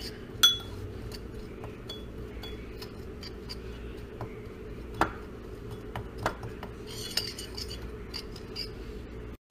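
Metal spoon clinking and scraping against a ceramic bowl while stirring dry ground spices, with a sharp clink about half a second in and a few more around five and six seconds.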